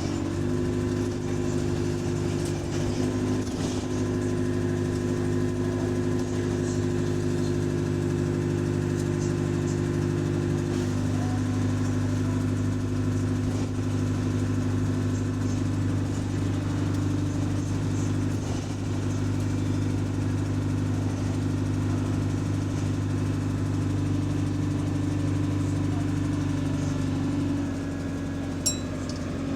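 Bus engine heard from on board, running steadily under throttle. Its drone shifts pitch a couple of times and drops near the end, as the bus pulls along and then eases off.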